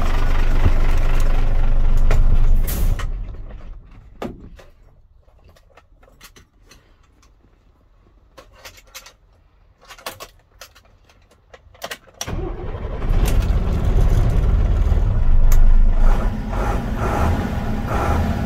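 Mercedes-Benz 917 AF fire truck's diesel engine running, then winding down to a stop about four seconds in. A few scattered clicks follow in the quiet, and about twelve seconds in the engine is started again and settles into a steady run.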